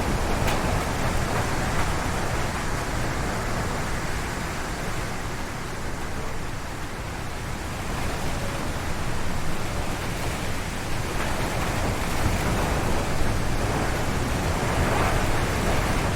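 Strong wind gusting through forest trees, a dense, steady rushing noise. It eases slightly about five seconds in and builds again a few seconds later.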